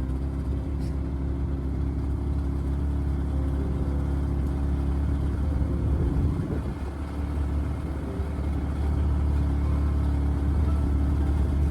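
Yamaha Attack snowmobile's four-stroke four-cylinder engine running at a steady idle just after being started, dipping briefly about seven seconds in and then running a little louder.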